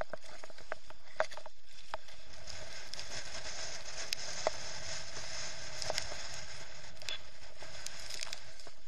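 Steady muffled rush of wind and water chop on a sailing kayak, with scattered ticks and taps of spray and drops hitting the action camera's housing.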